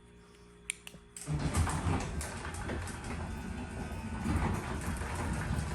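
Two clicks, then a garage door opener starts about a second in and runs steadily, a continuous mechanical rumble of the motor and the moving door.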